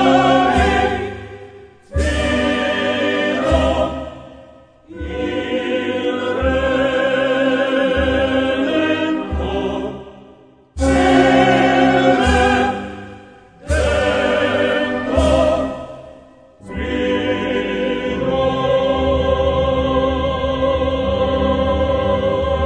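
Choral singing with vibrato over an orchestral accompaniment. It breaks off and starts again abruptly several times, as in spliced-together clips.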